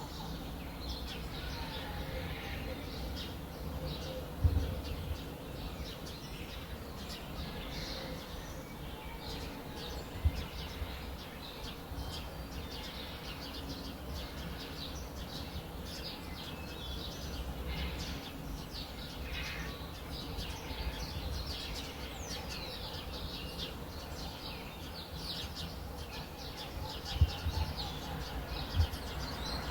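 Many small birds chirping and twittering over a steady low rumble, with a few brief low thumps, the loudest near the end.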